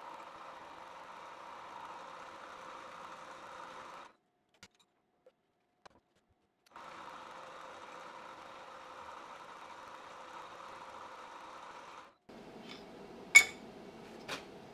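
Milling machine spindle running steadily with an end mill taking a light cut along the teeth of a homemade steel thread tap; the sound drops out for about two and a half seconds a few seconds in, then resumes. Near the end, two sharp metal clicks, the first loud, as the collet block holding the tap is handled.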